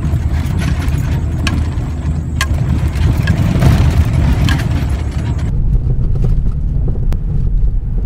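Car driving over a rough, potholed dirt road: a steady low rumble with a few sharp knocks from the suspension, the knocking of worn-out shock absorbers that no longer damp the bumps.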